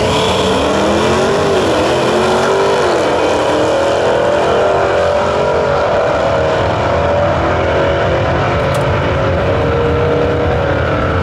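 Two drag cars launching side by side at full throttle and accelerating away down the strip, a vintage hot rod and a modern Dodge Challenger. The engine notes climb, drop back at a gear change or two in the first few seconds, then climb again as the cars pull away.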